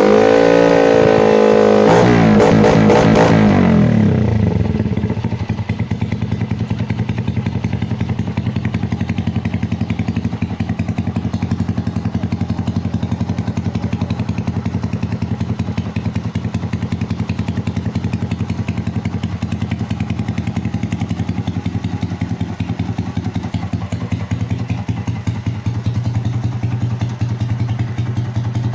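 Honda TMX 125 Alpha's single-cylinder four-stroke engine idling steadily through an aftermarket exhaust muffler, after a few seconds of music that fades out about four seconds in.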